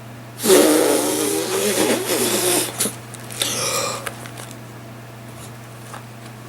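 A dog vocalizing: a drawn-out, wavering sound of about two seconds, then a shorter one about a second later.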